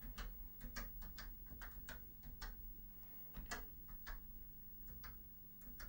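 Keys being typed on a Commodore PET 2001's chiclet keyboard: a dozen or so light clicks at an uneven pace, over a steady low hum.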